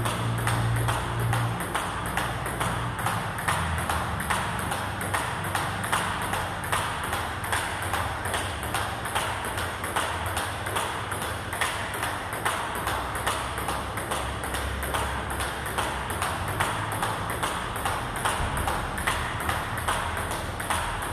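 Table tennis rally: the plastic ball clicking off the bats and bouncing on the table in an even, unbroken rhythm of a few clicks a second, one of the bats being a Butterfly Fan Zhendong ALC blade with Dignics 09C rubbers.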